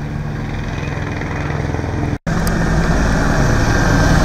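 Heavy fire-engine engine running steadily at idle. The sound cuts out for an instant about halfway, then a fire engine is heard driving past, growing louder.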